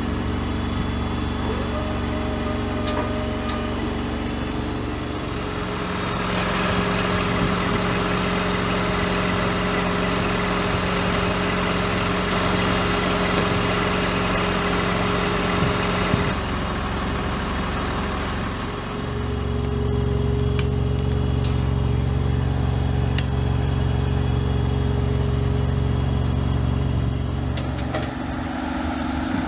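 Engines and machinery of a thermoplastic road-marking truck running steadily, with the engine note changing about 6 seconds in and again around 19 seconds.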